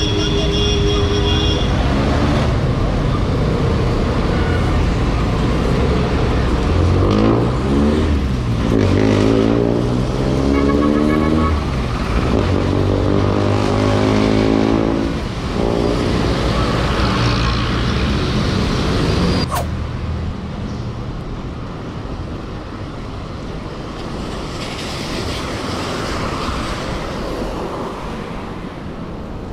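Road traffic heard from a bicycle on a city street: vehicle engines running and revving, their pitch rising and falling through the first half. About two-thirds of the way in, the level drops suddenly to quieter road noise with tyre hiss on wet pavement.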